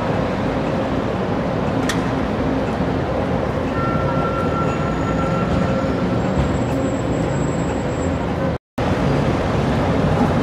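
City street traffic: buses, vans and cars running and passing, a steady dense noise with a low hum. The sound drops out for a split second about three-quarters of the way through, then the same traffic noise carries on.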